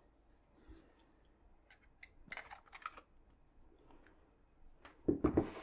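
Scattered light clicks and taps of small objects being handled on a work surface, with a louder rustle about five seconds in.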